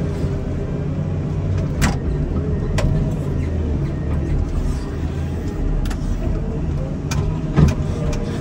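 Komatsu wheel loader's diesel engine running steadily while pushing snow, with a few short knocks, the loudest near the end.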